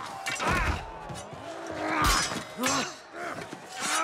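Sword-fight sound effects: several heavy weapon blows and clashes, with shouting and grunting voices between them.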